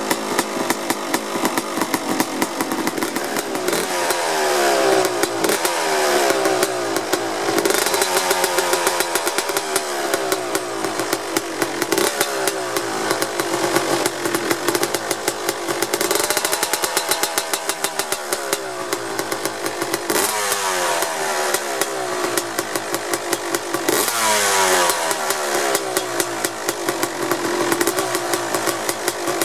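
Suzuki RM 250's single-cylinder two-stroke engine running cold through an FMF Fatty expansion chamber and Shorty silencer. Between blips it idles with a rapid crackle. The throttle is blipped about every four seconds, and the revs climb and drop back each time.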